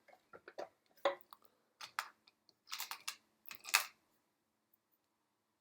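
Korg Triton Extreme's pitch-bend joystick being pushed and let go, giving a run of small plastic clicks and knocks as its spring snaps it back to centre: the return spring working again after the repair. The clicks stop about four seconds in.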